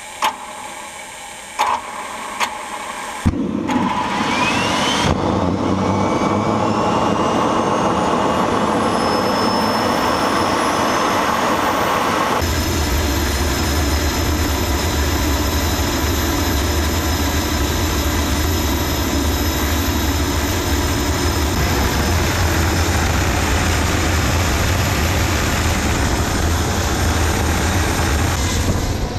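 TS-20B aircraft turbostarter, a small gas turbine running on propane, being started: after a few clicks its starter spins it up with a steadily rising whine. About twelve seconds in, a deep steady roar joins abruptly as the combustion lights, and it runs steadily at idle.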